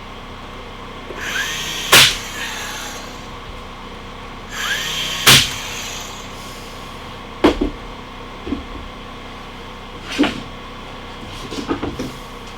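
Power drill whirring twice in short bursts of about a second, each ending in a sharp loud crack, followed by several scattered knocks and clunks of handling wood and tools.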